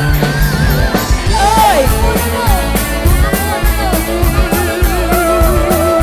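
Instrumental band music in a break between sung verses: a lead melody bending and wavering in pitch over a steady drum beat.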